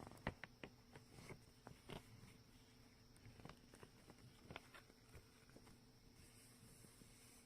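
Faint, scattered clicks and taps of a gift package being handled and opened, with a low steady hum beneath.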